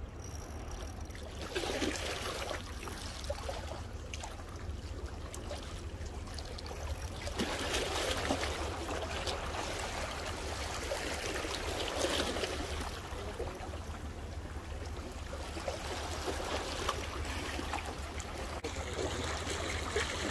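Sea water washing and splashing against shore rocks in irregular surges, with a steady low rumble underneath.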